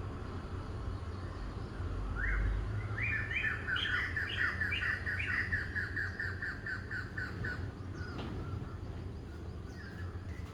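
A songbird singing a fast run of short, repeated chirps that lasts about five seconds, over a steady low rumble. A single sharp click comes near the end.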